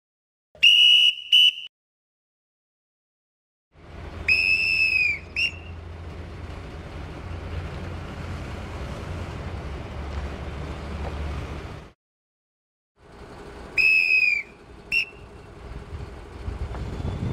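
A dogger's whistle blown as a crane signal, one long blast then one short, which is the signal for slewing left, heard three times. The long blasts drop slightly in pitch as they end. The second and third signals are heard over the steady low rumble of a mobile crane's engine running.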